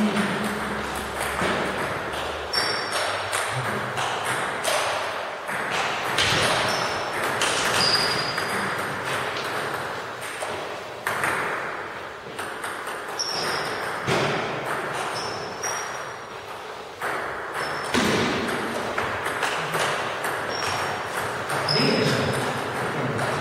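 Table tennis rallies: the celluloid ball clicking sharply off the bats and the table, a run of quick taps with short gaps between points.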